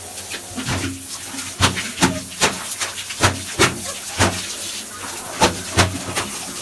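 Music with a fast, steady beat of sharp hits, about two and a half a second, and a voice over it.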